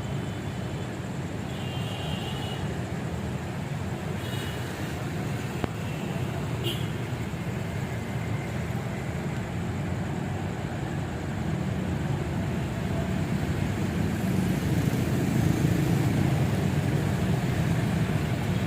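Steady low rumble of vehicle noise that grows louder over the last several seconds, with a few faint short high tones in the first seconds.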